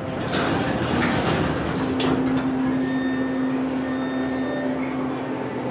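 Schindler hydraulic elevator running during a ride, heard from inside the car: a steady mechanical rumble, with a steady hum that comes in about two seconds in and drops away near the end.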